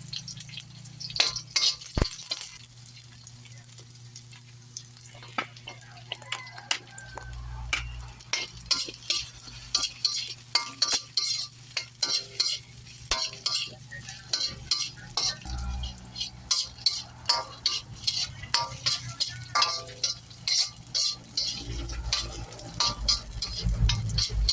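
Onions and garlic sizzling in hot cooking oil in a wok (kawali) while being stirred, with many quick scrapes and taps of the spatula against the pan, fast and fairly regular from about eight seconds in.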